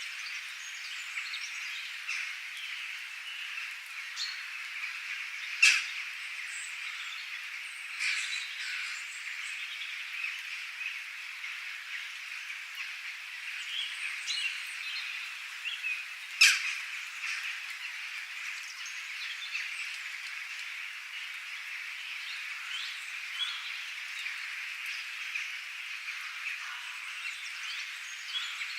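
Outdoor wildlife chorus: a dense, steady chirping of many frogs and birds together, with scattered higher calls on top. Two sudden sharp sounds, about six and sixteen seconds in, stand out as the loudest moments.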